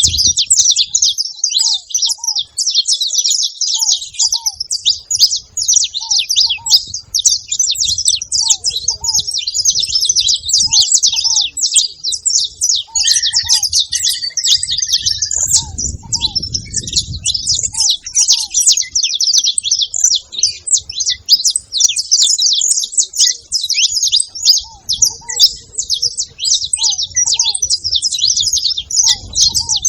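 Saffron finch chirping and twittering without pause in fast, high-pitched runs of notes, with short lower falling notes repeating underneath and a brief lower whistled note about halfway through.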